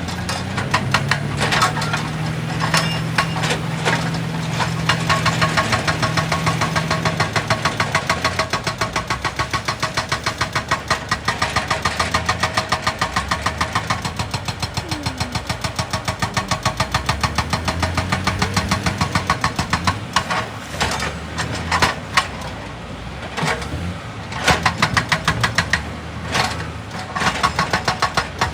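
Heavy diesel machine engine running, with a rapid, even hammering of several blows a second through most of the stretch.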